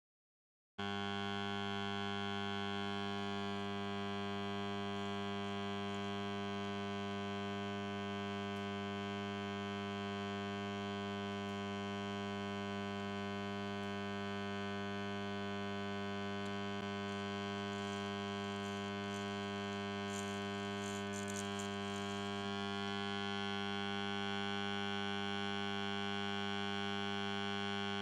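Modified microwave oven transformer humming steadily under heavy load as its shorted secondary heats a carbon crucible of molten aluminium. The hum starts abruptly about a second in and holds at an even pitch.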